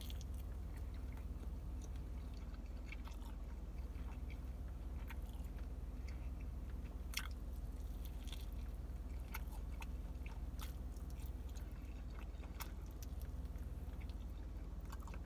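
A person chewing and biting into grilled chicken, with scattered wet mouth clicks, the sharpest about seven seconds in. A steady low hum runs underneath.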